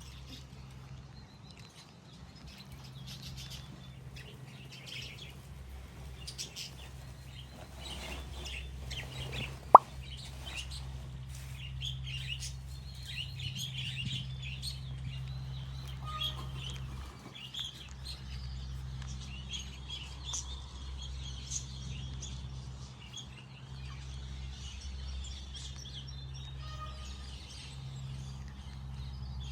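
Aviary birds chirping and twittering, many short overlapping calls, over a steady low hum. A single sharp click comes about ten seconds in.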